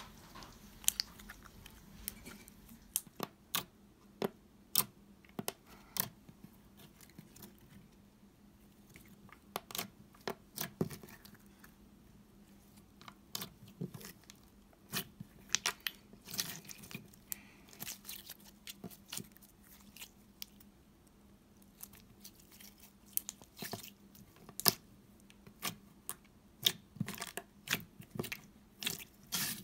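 Slime being squeezed, folded and pressed flat by hand, giving irregular sharp clicks and pops, several a second in places, with short quiet gaps.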